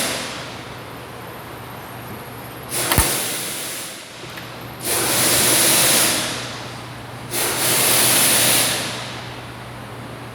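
Three bursts of compressed-air hiss from pneumatic air tools in a working auto repair shop, each lasting about a second and a half. The first opens with a sharp knock. A steady low hum runs underneath.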